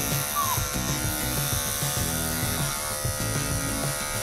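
Electric dog-grooming clippers running with a steady buzz as they trim a toy poodle's hind-leg fur, over background music.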